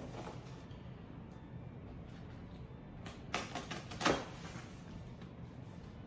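A sharp kitchen knife slicing through the packing tape on a cardboard box, giving a few short rasps about three and four seconds in.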